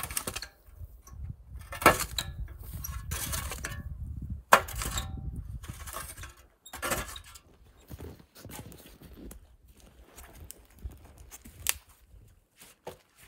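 Metal shovel scraping and clanking against a metal fire pit while it is cleared out, with two loud clanks about two and four and a half seconds in, then lighter scattered knocks and scrapes.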